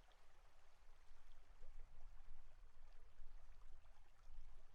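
Faint babbling brook: water trickling and bubbling over stones, with a low steady rumble underneath.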